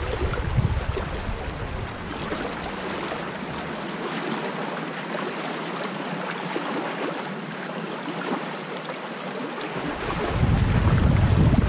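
Creek water rushing over a shallow riffle, a steady hiss. Wind buffets the microphone at the start and again from about ten seconds in.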